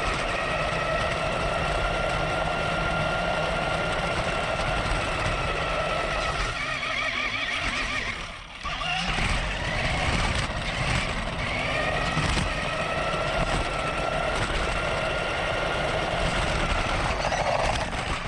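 Electric motor of a Sharper Image Mountain Thrasher RC truck running on a 3S LiPo, giving a steady whine as it drives, over a low rumbling noise. The whine drops out briefly about eight seconds in, then comes back.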